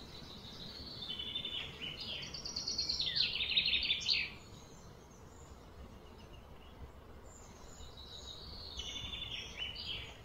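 A songbird singing: a run of quick, high chirps and trills lasting a few seconds, then a shorter phrase near the end, over a steady outdoor background hiss.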